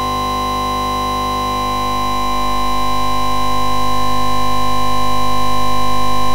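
Background music: one sustained chord held steady, growing louder from about two seconds in.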